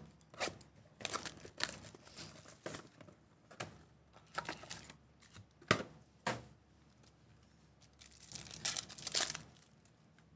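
Plastic wrapping and foil trading-card packs crinkling and tearing by hand as a Panini Select basketball box is opened and its packs pulled and torn open, in irregular short bursts with a sharp tear about six seconds in and a longer stretch of crinkling near the end.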